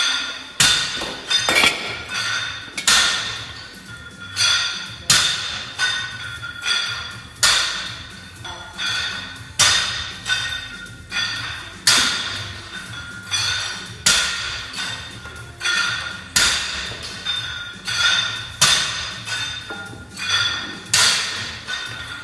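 Gym weights knocking down on the floor with each rep of a lifting workout, a loud metallic clank with a ring about every two seconds and lighter knocks between, over background music.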